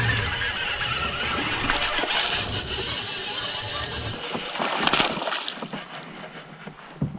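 A fishing reel is cranked in as a hooked largemouth bass fights at the end of the line, with water splashing and a brief louder splash about five seconds in.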